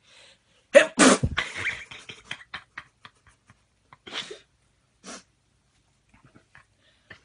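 A man's sneeze set off by a twisted tissue string pushed into his nostril. One loud, sudden burst comes about a second in and trails off into rough breathing, with two shorter bursts of breath around four and five seconds.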